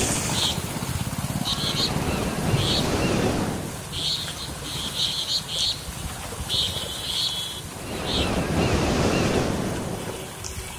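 Traffic wading through floodwater on a road: a steady rushing and sloshing of water under tyres with a low engine rumble, and short high chirps recurring every second or so.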